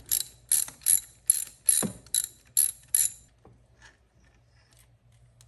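Hand ratchet clicking as it turns a 5/8 spark plug socket to loosen an old spark plug, about eight sharp clicks evenly spaced over three seconds, then it stops.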